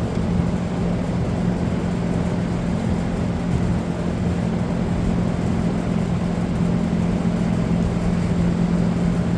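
Steady low mechanical hum with a constant drone, unchanged throughout.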